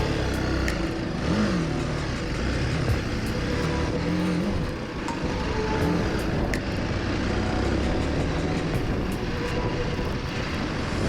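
Single-cylinder motorcycle engine running under load over rough ground, its revs rising and falling a few times, with scattered small clicks.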